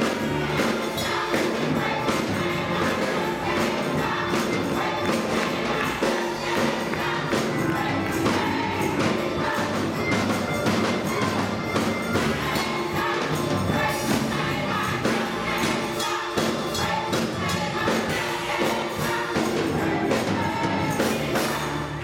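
Gospel choir singing over keyboard accompaniment, with a tambourine keeping the beat.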